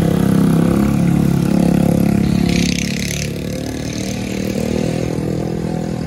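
Motorcycle engines passing on the road, loudest for about the first two and a half seconds and then easing off. A short, higher rattling hiss comes about halfway through.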